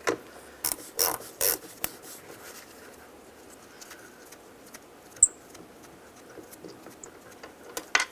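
Hand wrench working on truck door-hinge bolts: a few sharp metal clinks in the first second and a half, then faint scraping and ticking, with single clinks around the middle and near the end.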